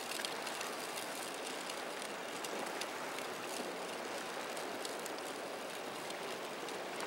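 Steady rushing wash of wind and choppy sea water around a motor yacht running through the waves and throwing a wake, with no clear engine tone.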